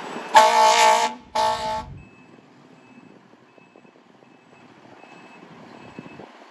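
Residential fire alarm horn sounding two loud blasts, each just under a second long. After them a faint high beep repeats about every three-quarters of a second.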